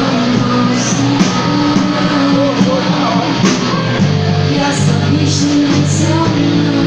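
Rock band playing live: electric guitars and a drum kit, with a young woman singing into a microphone.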